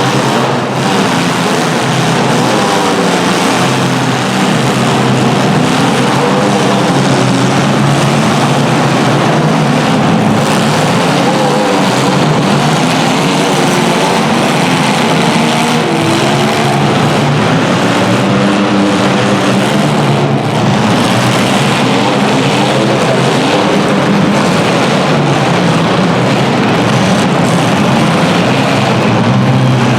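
Several compact cars' engines running loudly together, their pitch rising and falling as they rev.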